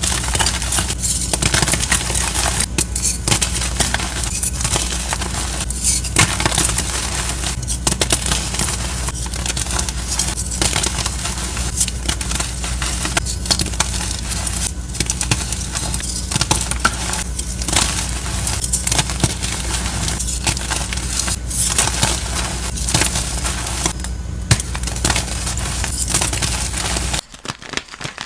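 Continuous crunching and crackling of dry material being crushed, over a steady low hum; the sound drops off sharply near the end.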